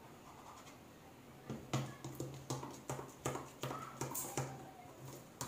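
A quick run of sharp clicks and taps, about two to three a second, starting about a second and a half in, with a short low hum under each.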